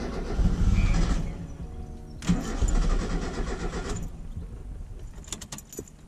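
Starter motor cranking a Mazda MX-5's four-cylinder engine twice, each try lasting a second or two; the engine turns over but never fires because the fuel pump is cut off by a kill switch. A few light clicks follow near the end.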